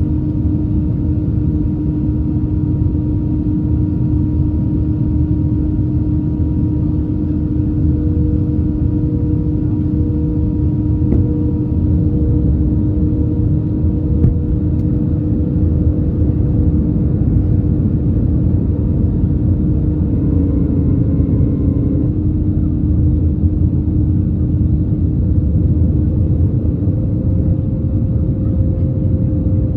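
Steady drone of an Airbus A321 in flight, a low rumble with a constant hum over it. A brief extra whine joins for about two seconds near the 20-second mark.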